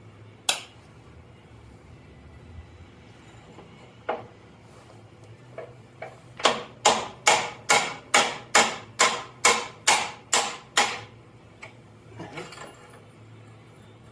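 Hammer striking metal during a tractor transmission teardown: a single blow, another about four seconds in, then a steady run of about eleven blows at a little over two a second, each with a short metallic ring.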